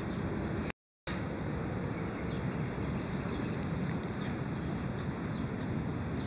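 Outdoor ambience: a steady low rumble with faint, short, high chirps scattered through it. The sound cuts out completely for a moment about a second in.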